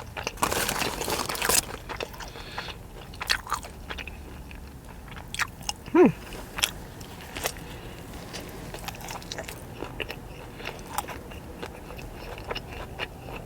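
Someone biting into and chewing a hand-breaded fried chicken tender wrap close to the microphone: a loud crunchy bite in the first second or so, then scattered crunching and mouth clicks as she chews. A short falling vocal sound comes about six seconds in.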